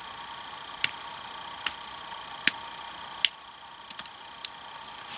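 A series of sharp clicks: four loud ones a little under a second apart, then a few fainter ones, over a steady faint hiss.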